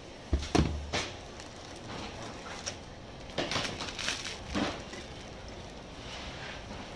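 A thud and sharp knocks of a cleaver and pineapple against a cutting board in the first second, then crinkling of a thin plastic bag being pulled open from about three to four and a half seconds in.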